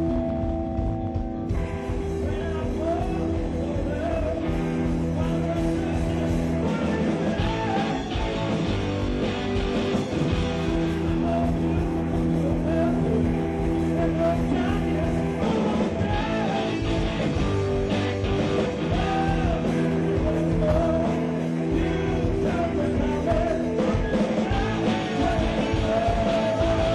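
Rock music with guitar, playing steadily with held chords and a wavering melody line.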